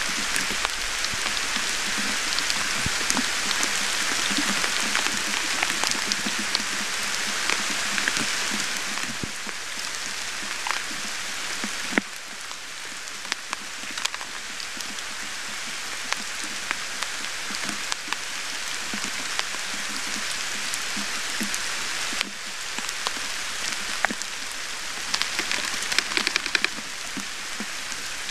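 Steady rain falling on the forest and the nest, with many sharp drips ticking close by.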